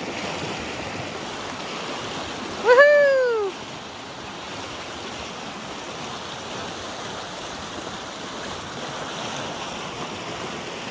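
Fast mountain stream rushing steadily, running high with snowmelt. About three seconds in, a person's short cry, rising then falling in pitch, rings out over it.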